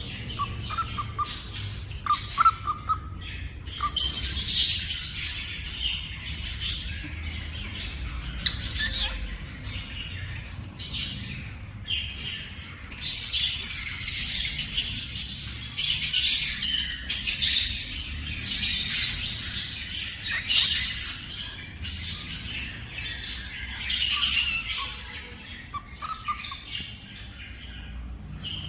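Small pet parrots chirping and squawking in repeated high bursts of a second or two, with a few short whistled notes near the start and again near the end.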